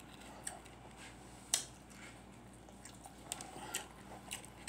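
Quiet eating sounds: chewing with a few short wet mouth clicks, the sharpest about a second and a half in.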